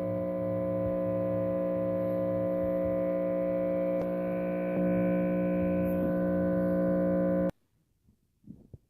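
Electric spark or arc buzzing: a loud, steady electrical buzz that stops suddenly about two-thirds of the way through, followed by a few faint crackles.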